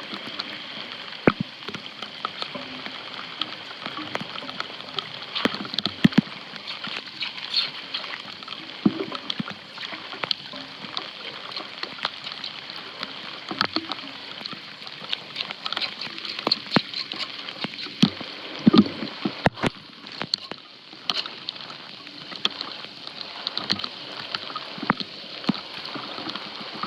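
Floodwater sloshing and gurgling through a street drain, with frequent irregular splashes and knocks.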